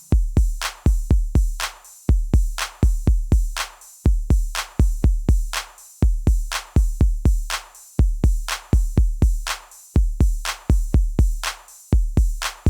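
Background electronic music: a drum-machine beat of deep kick drums and crisp percussive hits in a steady repeating pattern.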